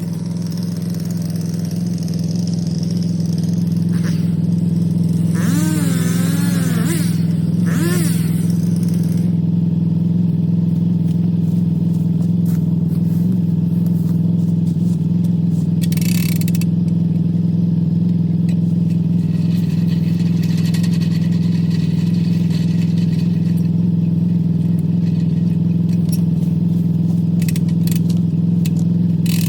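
ATV engine running at a steady speed with a constant low drone while towing a log on a log hitch. A brief wavering higher tone rises and falls about six seconds in.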